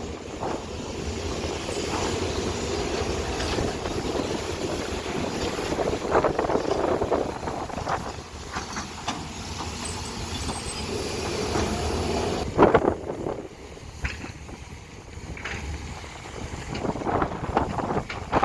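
Hydraulic excavators working, a steady diesel engine rumble with wind buffeting the microphone, and scattered knocks, the loudest about two thirds of the way through.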